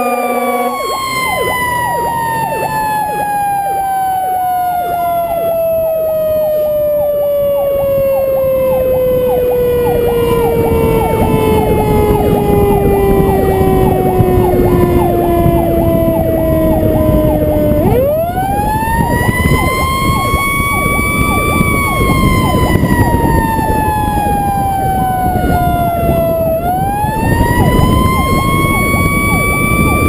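Fire truck's mechanical siren winding slowly down in pitch for about eighteen seconds, then spinning back up, easing down and rising once more, over the truck's engine and road noise. A steady horn blast cuts off just under a second in.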